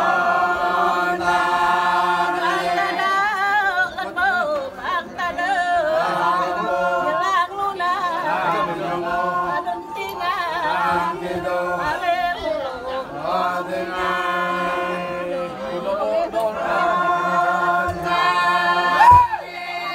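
A group of voices singing a traditional chant together, unaccompanied, in long held notes that slide from one pitch to the next over a steady low drone.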